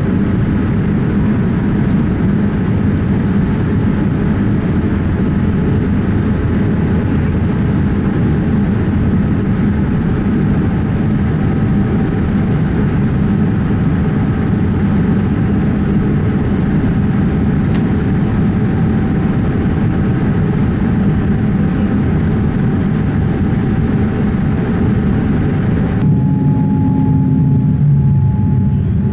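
Steady cabin noise inside a Boeing 787-9 in flight: a loud, even rumble and hiss of airflow and its Rolls-Royce Trent 1000 engines, heard from a window seat. Near the end the hiss drops away abruptly and a steady hum stands out.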